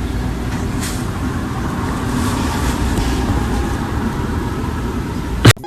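Steady, loud low rumbling noise, ending in a sharp click near the end.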